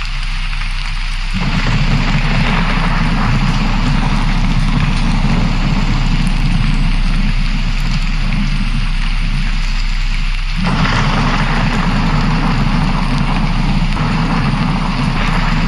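Steady rain with deep thunder-like rumbling that sets in suddenly about a second and a half in, breaks off briefly near ten seconds and then resumes.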